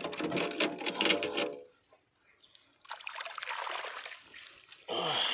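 Water trickling and splashing as the day's catch of fish is handled in the water, getting louder near the end.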